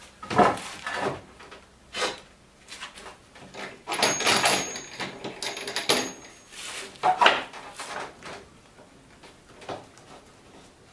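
Handling noises from a sliding mitre saw and its parts: several knocks and clunks, with a scraping slide lasting about two seconds near the middle. No motor is running.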